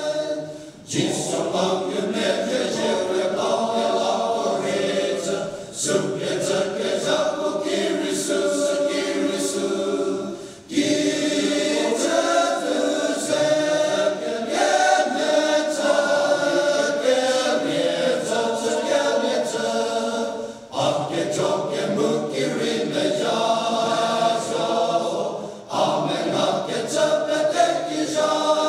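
Men's choir singing in parts, with many voices together in sustained phrases. Short breaks between phrases come about 1, 6, 10, 21 and 26 seconds in.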